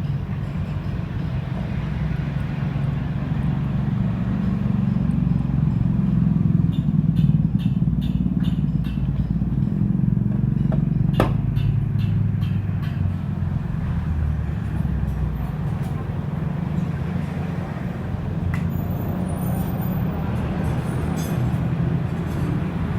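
A motor vehicle engine running steadily with a low hum whose pitch shifts slightly, with a run of sharp metallic clicks and taps in the middle.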